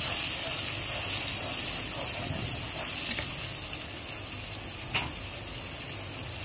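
Onion, tomato and ginger-garlic-cumin paste sizzling in oil with a little water in a nonstick pan as the masala is fried down, stirred with a wooden spatula. The sizzle is loudest in the first couple of seconds and then eases, with a single knock about five seconds in.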